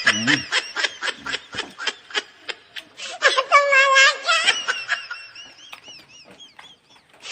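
Laughter: a run of quick breathy snickers, then a higher, drawn-out squealing laugh about three and a half seconds in, dying away near the end.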